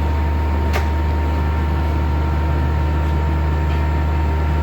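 Repaired window-type air conditioner running and cooling, its compressor and fan giving a loud, steady hum with a thin steady whine above it. A single faint click comes about three-quarters of a second in.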